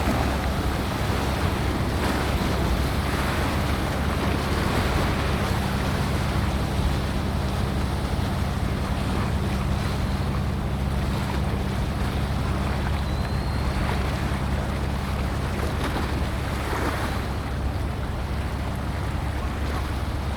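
Steady wind on the microphone and water noise, with a constant low engine drone from a ship on the strait.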